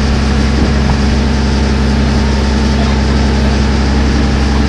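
Boat engine running steadily, a low even drone heard from on board, with a steady hiss over it.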